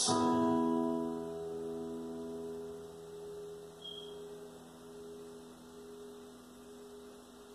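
Acoustic guitar chord strummed once and left to ring, its notes slowly fading away.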